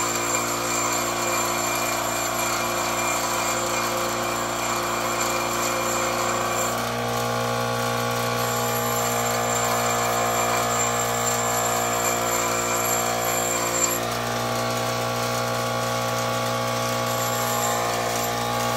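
Bench grinder running as a metal knife guard is held against the wheel to shape it, a steady motor hum with grinding. The tone shifts about seven and fourteen seconds in.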